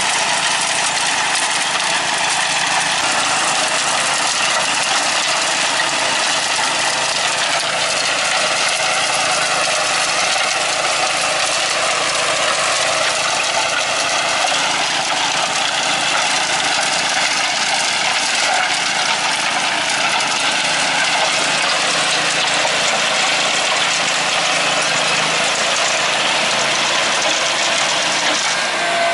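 Simplicity Legacy garden tractor's engine running steadily under load while its rear PTO-driven rotary tiller churns through garden soil.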